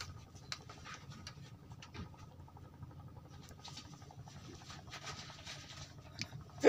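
Quiet ambience at open water: a faint low rumble with light, scattered ticks and patter.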